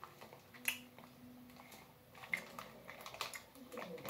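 Faint chewing of a sour gummy, with scattered small clicks and crinkles from a paper wrapper handled in the hands, and a short low hum from about half a second in to nearly two seconds.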